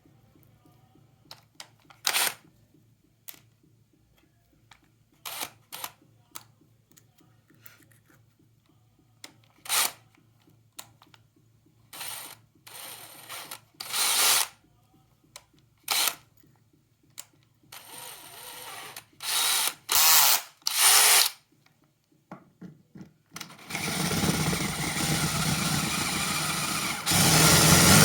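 Cordless drill run in a series of short bursts, then run continuously from about 24 s, growing louder about 27 s in.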